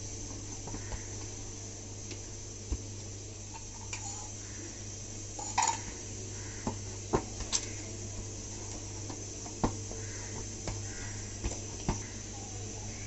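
Oiled dough being kneaded and pressed by hand in a stainless steel plate, with about ten irregular knocks and clicks of hand and dough against the metal, over a steady low hum.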